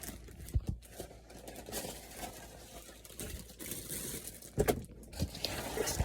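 Handling noises: packaging rustling and crinkling, with a few light knocks and clicks.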